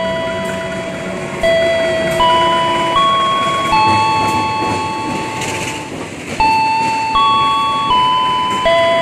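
A slow melody of bell-like electronic tones. Each note starts suddenly and fades, about one note a second, with a faint steady noise underneath.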